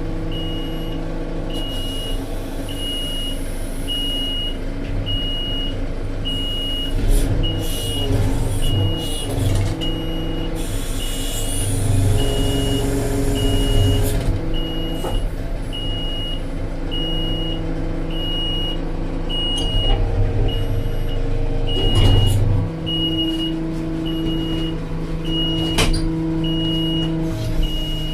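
Diesel engine of a Tata Hitachi Shinrai Prime backhoe loader running under changing hydraulic load while it digs and loads mud, with a high beeping alarm repeating steadily throughout. A few knocks come through, the loudest about 22 seconds in.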